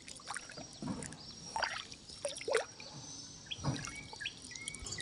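Small splashes, drips and trickles of water around a small fiberglass boat being paddled through floodwater, a few strokes roughly a second apart. Faint bird chirps come in near the end.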